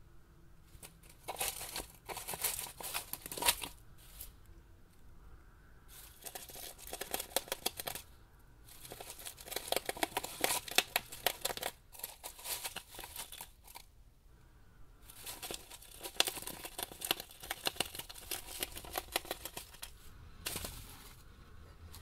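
Two Mongolian gerbils gnawing cardboard: rapid scratchy rasping from their teeth, in several bouts of a few seconds each with short pauses between.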